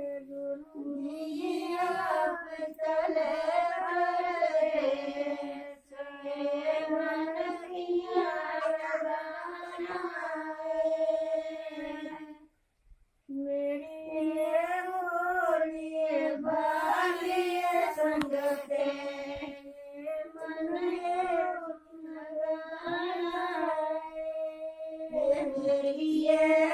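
Women singing a traditional wedding folk song in long, wavering phrases, with a short pause about halfway through.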